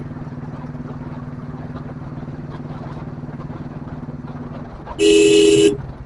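Royal Enfield Bullet single-cylinder engine running steadily at cruising speed, then one loud horn blast lasting under a second about five seconds in.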